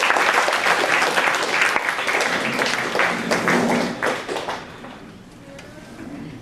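Audience applauding, dense clapping of many hands that dies away about four and a half seconds in.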